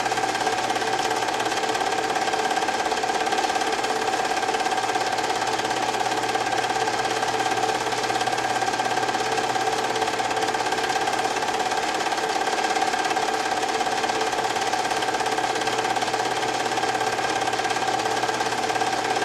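Home-movie film projector running: an even mechanical whir and clatter with a steady whine over it.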